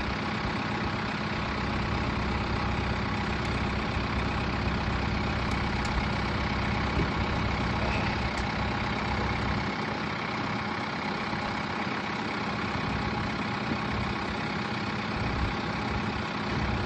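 A heavy engine idling steadily, with a low, even hum that does not rise or fall.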